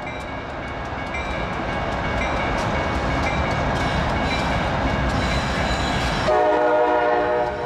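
CSX diesel freight locomotive approaching a grade crossing: a steady engine and wheel rumble that grows louder, with the crossing bell ringing. Near the end its multi-note air horn sounds once for about a second.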